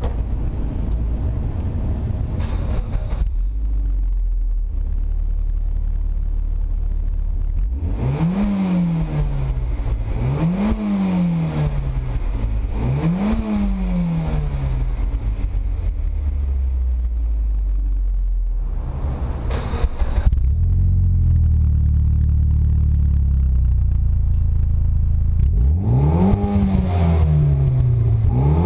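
Mitsubishi Lancer Evolution X's turbocharged 2.0-litre four-cylinder idling through its stock exhaust, then revved three times in quick blips a couple of seconds apart, each climbing fast and falling back to idle. After about twenty seconds a slightly louder take of the same car follows, idling and then revved twice.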